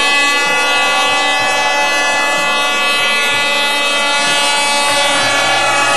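An air horn sounding one long, steady, unbroken blast.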